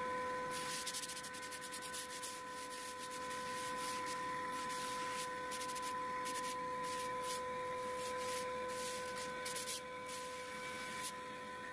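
Hand sanding of a CNC-carved MDF panel: sandpaper rubbed over the wood in quick, irregular strokes, starting about half a second in and stopping near the end. A steady high whine of a few pitches runs underneath.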